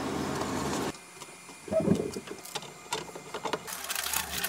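Masking tape being pulled off the roll and pressed on, with newspaper crackling. A steady rasp for about the first second, then, after a sudden drop, scattered short rips and clicks, thickest near the end.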